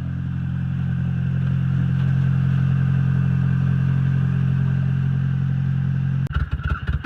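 2001 Honda Civic engine running steadily just after catching on a jump start. About six seconds in the sound turns abruptly to a louder, uneven pulsing.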